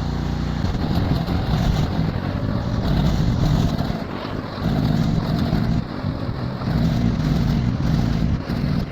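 Tractor engine running, with wind buffeting the microphone in uneven low gusts.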